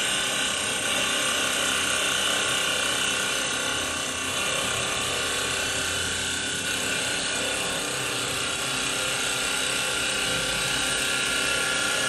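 CNC wood-turning lathe cutting a spinning wooden table leg: a steady machine whine over the continuous hiss of the cutter shaving wood.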